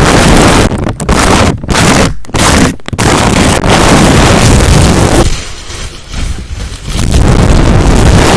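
Loud scratching and rubbing right against the microphone, in quick strokes with short breaks at first, then easing off around the middle before starting again.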